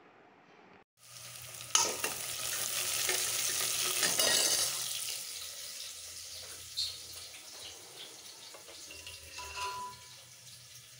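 Hot oil sizzling in a pan on the stove. It starts suddenly about a second in, is loudest for the next few seconds and then dies down, over a low steady hum, with a sharp click or two.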